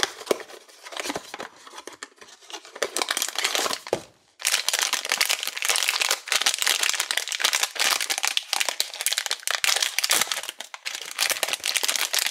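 Light rustling and crackles of a small cardboard blind box being opened, then from about four seconds in, continuous loud crinkling of a foil blind bag being handled and opened.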